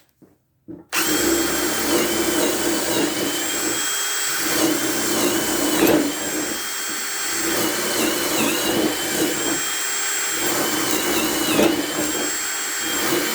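Ryobi brushless hammer drill (PBLHM101) with a 3/8-inch bit, starting about a second in and running on at high speed. Its whine dips in pitch several times as the bit bites under load.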